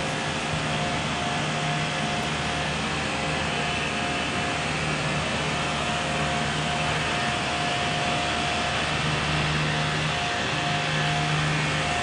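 Steady machine drone of a large rooftop HVAC unit running, a fan rush with a low hum and a higher held tone.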